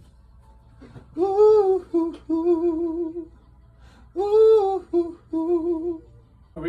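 A solo voice humming a short wordless melody, twice over. Each time it holds one note that rises and falls, then sings a few shorter wavering notes on a lower pitch.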